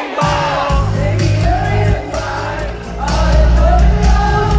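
Live pop song in an arena: a woman singing lead over a full band, with the bass and drums coming in just after the start and the music getting louder about three seconds in.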